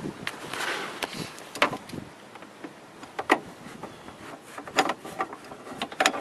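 Replacement reverse pedal being worked onto its shaft under a garden tractor's floorboard: handling noise with scattered sharp clicks and knocks of parts against each other.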